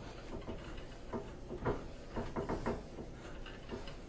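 Mini tubing cutter being turned around a copper water pipe, giving a run of light, irregular clicks as it works the pipe.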